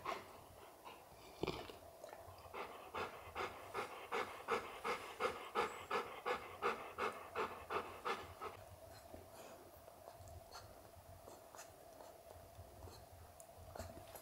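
Adult golden retriever panting, a steady rhythm of about three breaths a second that builds and then fades away after the middle of the stretch.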